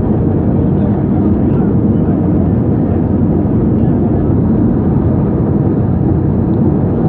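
Steady, even noise of an Airbus A320-212's CFM56 jet engines and rushing air, heard inside the cabin.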